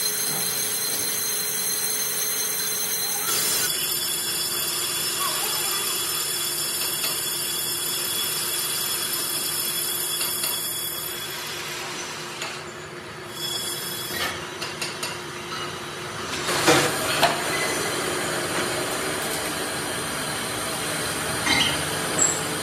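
Metal lathe running with a cast-iron brake disc in its chuck, a steady machine whine. About eleven seconds in it winds down, followed by a series of metal clanks and knocks, the loudest about seventeen seconds in, and another near the end as the disc is handled at the chuck.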